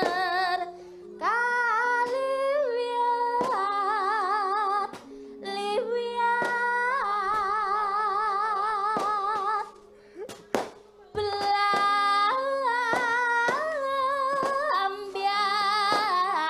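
A female sinden singing a Javanese vocal line into a microphone, each held note wavering with wide vibrato, over a steady low accompaniment. The phrases break briefly about a second in, around five seconds in, and near the middle.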